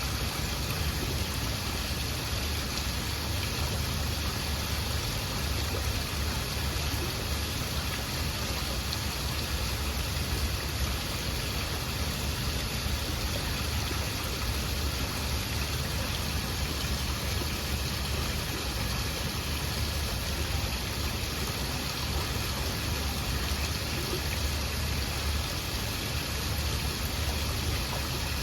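Waterfall: water falling and rushing steadily, a constant even rush with a deep low rumble.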